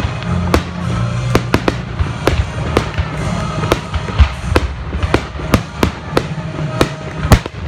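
Aerial firework shells bursting in an irregular string of sharp bangs, two or three a second, the loudest near the end. Music plays underneath.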